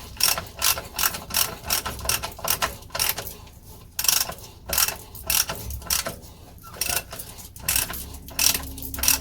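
Ratchet wrench clicking steadily, a few clicks a second, as the gearbox filler plug is screwed back in after the oil fill.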